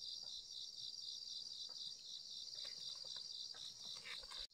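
A steady high, shrill insect chorus that pulses evenly several times a second, with a few faint footsteps on a dirt path.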